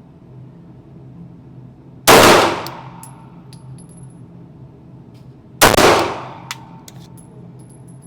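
Two 9mm Glock pistol shots about three and a half seconds apart, each a sharp loud crack with an echo that dies away over about a second, followed by a few light clicks.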